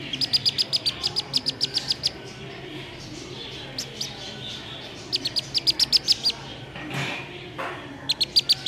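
Black-bellied whistling duck duckling giving its distress call: rapid runs of high, sharp peeps, about seven a second, in three bouts with pauses between them.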